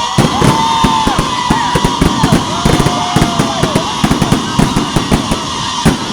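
Fireworks going off in rapid succession: dense sharp pops and crackling, with several short whistling tones that rise and fall in pitch.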